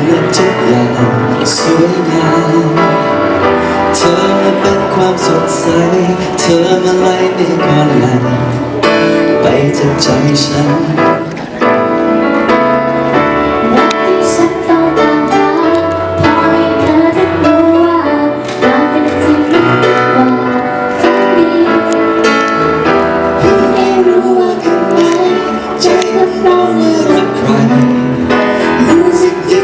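Live band music of a Thai pop ballad: a steady bass and chords under a wavering melody line that carries on throughout.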